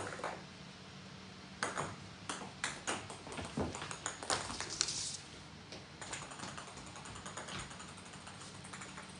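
Small hard ball clicking and bouncing on a hardwood floor as a cat bats it: a quick, irregular run of light taps, thickest a couple of seconds in and thinning out toward the end.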